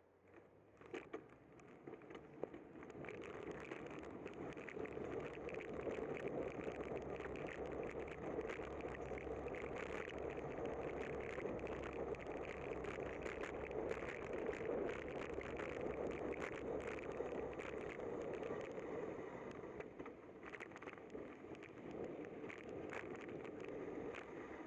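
Wind and tyre noise of a bicycle riding on a wet road, heard through a handlebar-mounted camera. It rises over the first few seconds as the bike sets off from a stop, then holds steady, with many small crackling ticks.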